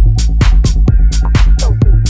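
Electronic dance music track with a steady pounding kick and bass under regular hi-hats; a higher synth line comes in about a second in.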